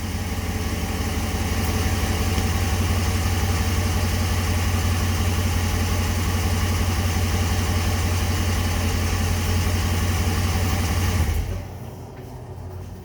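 Ram 1500 pickup truck engine idling steadily through an exhaust fitted with an electric cutout valve, with a strong low rumble. The sound stops abruptly about eleven seconds in.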